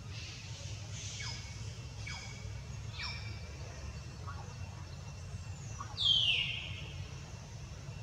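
Macaques calling: three short falling squeaks about a second apart, then a louder falling squeal about six seconds in, over a steady low rumble.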